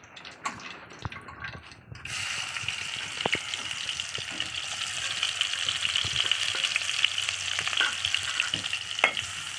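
Sliced onions dropped into hot oil in a kadhai, breaking into a sudden, steady sizzle about two seconds in as they fry, with a few sharp clicks over it.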